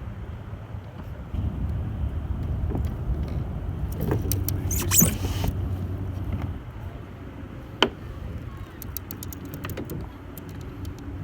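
Clicks and light metallic rattles of fishing tackle being handled, over a steady low rumble that swells and fades in the first half.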